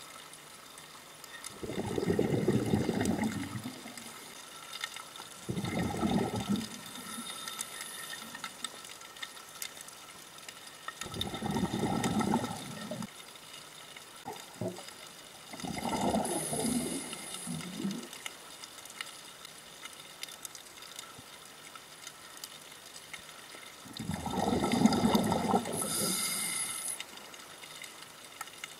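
A scuba diver's exhaled bubbles venting from the regulator, heard underwater as five gurgling rushes, each a second or two long, every few seconds in time with the diver's breathing.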